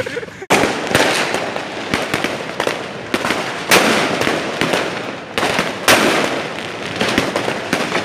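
Fireworks and firecrackers going off together: a continuous crackle of overlapping bangs with louder reports every second or so, starting abruptly about half a second in.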